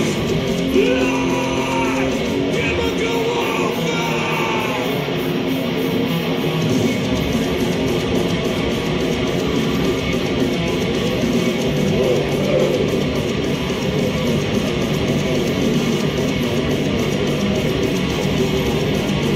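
A thrash metal band playing live and loud, with distorted electric guitars and a steady, unbroken wall of sound, heard from among the concert crowd.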